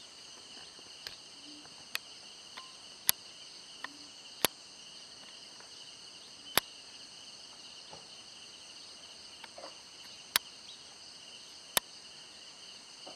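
A steady, high-pitched chorus of insects chirring, with several sharp clicks at irregular intervals that stand out as the loudest sounds.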